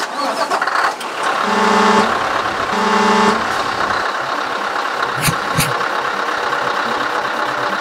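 Truck horn sounding two blasts of about half a second each over a steady engine hum. Two sharp hits follow a couple of seconds later.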